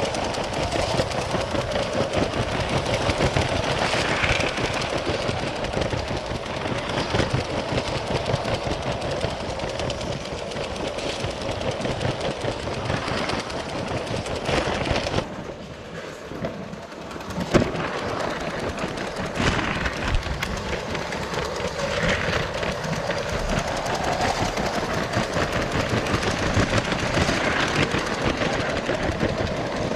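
Lego 12V model train running on its track, heard from right on the train: a continuous rapid clatter of plastic wheels over the track with the motor running underneath. About halfway through it goes quieter for a couple of seconds, then a single sharp click.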